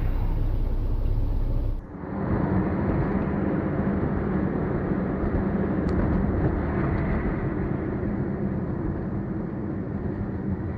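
Steady road and engine noise of a moving car heard from inside, as a dashcam records it, with an abrupt change in the noise about two seconds in where one recording gives way to another.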